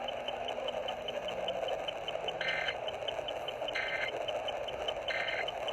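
Three short data bursts about 1.3 s apart, the Emergency Alert System end-of-message code closing an Amber Alert, received on an AM radio over steady static with a faint tick about five times a second.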